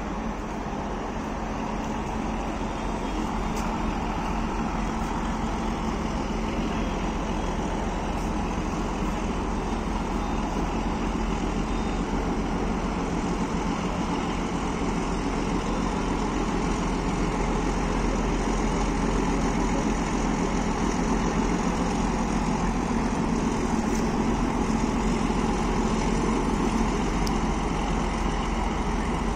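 WDM-3D diesel locomotive's engine running steadily with a deep hum, growing slowly louder over the first half and then holding, as it belches black smoke and flame from its exhaust.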